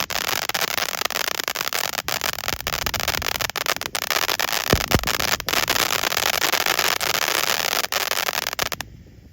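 Ground fountain fireworks spraying with a dense hiss and rapid crackling, then dying away suddenly near the end.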